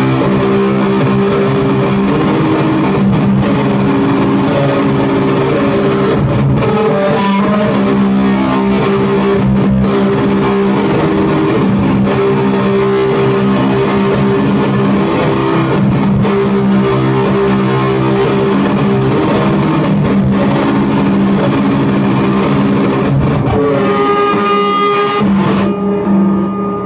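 Electric guitar played through a Bridge City Sound Burnside overdrive pedal into two Hovercraft Dwarvenaut amp heads: loud, sustained overdriven chords and riffs with the gain turned up high. Near the end the playing stops and a last chord rings out and fades.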